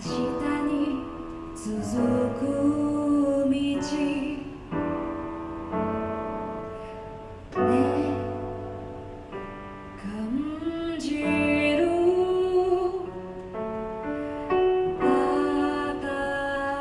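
Live pop ballad: a woman singing over piano chords, with a drum kit and cymbal strokes keeping time.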